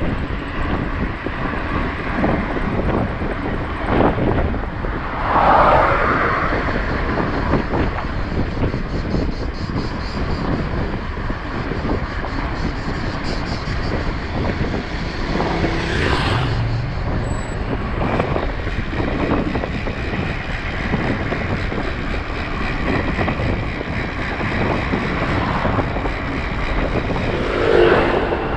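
Steady rush of wind on the microphone mixed with tyre noise from a moving mountain bike, with a few louder swells about five, sixteen and twenty-eight seconds in.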